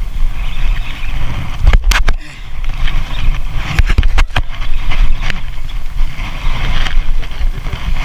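A large spinning reel being cranked steadily against a heavy fish hooked deep on a jig. Wind rumbles on the microphone throughout, and a few sharp knocks from the rod and reel being handled come around two and four seconds in.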